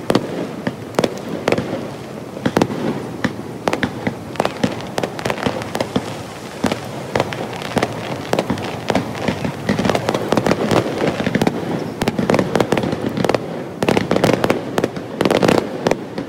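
Aerial fireworks display going off: a dense run of sharp bangs and crackles, several a second, thickest near the end.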